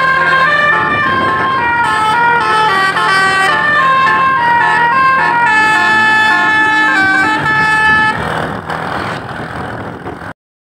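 Tour bus telolet horn, a multi-tone air horn, playing a quick melody of stepping notes for about eight seconds and then stopping. The bus's running and road noise are left after it, and the sound cuts out briefly to silence near the end.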